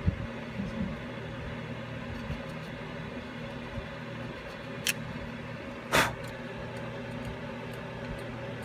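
A screwdriver tip working at the rust and gunk on a plastic-bodied ABS wheel speed sensor: a few small knocks, then two sharp clicks about five and six seconds in, the second louder, over a steady low hum.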